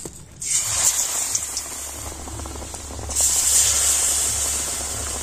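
Batter-coated potato-and-flour snack deep-frying in hot oil in an aluminium kadai: a loud sizzling hiss that starts suddenly about half a second in as the battered piece hits the oil, and grows louder again about three seconds in.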